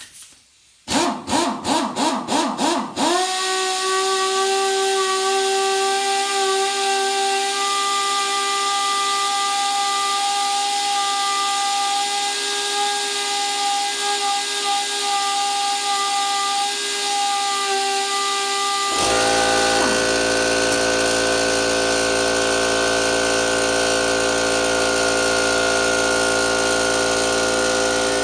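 Pneumatic impact wrench running free on compressed air: a few short trigger bursts, then a long steady whine. About nineteen seconds in, the McGraw 20-gallon air compressor's motor kicks on to refill the drained tank and keeps running with a steady low hum under the wrench.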